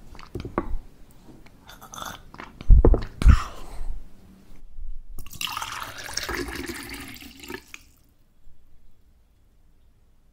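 A person drinking from a plastic water bottle: gulps and water sloshing in the bottle, with two loud low thumps about three seconds in. The sound stops for a moment about halfway, and the last couple of seconds are nearly silent.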